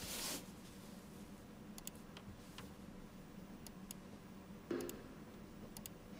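Faint, scattered light clicks over quiet room tone, with a brief rustle at the start and a short pitched sound near the end.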